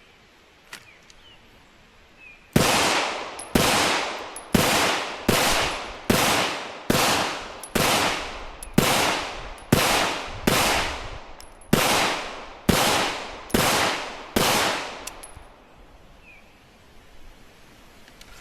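Firearm fired in slow, steady single shots, about fourteen in a row roughly a second apart, each crack followed by a short fading echo.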